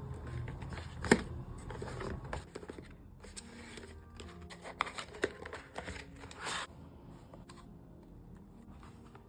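Cardboard box of a watercolour paint set being handled and opened: paper scraping and rustling, with a sharp click about a second in, a few lighter clicks later on and a short rustle near the end, as the plastic palette box comes out.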